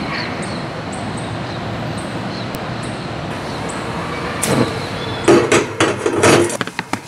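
A steady rush of background noise with a few faint high chirps. About four and a half seconds in, a run of sharp clicks and metallic clanks follows at a gas stove: a lighter being struck, the burner lit, and cookware knocking on the grate.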